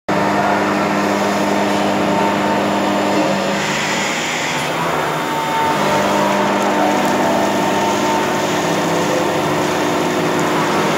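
CME BF04 milling machine face-milling a flat metal surface as the table feeds along the X axis: the cutter's steady cutting noise over a constant spindle hum.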